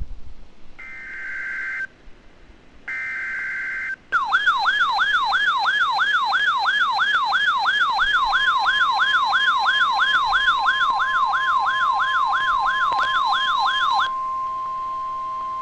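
NOAA Weather Radio Emergency Alert System alert starting. Two buzzing SAME digital header bursts of about a second each come first. About four seconds in, a fast warbling siren alarm starts, sweeping up and down nearly three times a second. The steady warning alarm tone comes in under the warble halfway through and carries on alone once the warble stops, about a second and a half before the end.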